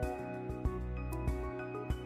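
Background music: sustained notes over a steady beat, with a percussive stroke about every two-thirds of a second.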